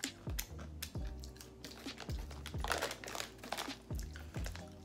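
Background music with a deep kick-drum beat and steady bass notes. A plastic snack bag crinkles in the hand, loudest about two and a half to three and a half seconds in.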